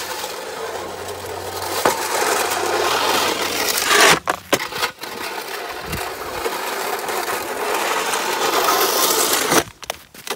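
Wide push-style snow shovel scraping along a concrete sidewalk as it pushes a load of snow, in long continuous strokes with a brief break about four seconds in. The scraping stops shortly before the end.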